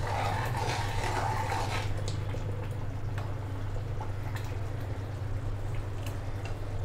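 Thick pea-and-potato curry simmering in a steel kadhai, with bubbles popping and plopping here and there over a steady low hum. A metal ladle stirs and scrapes through it for the first two seconds or so.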